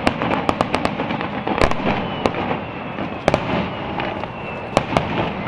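Fireworks display: aerial shells bursting with sharp bangs and crackling pops. The bangs come in a quick cluster in the first second, then singly about once a second.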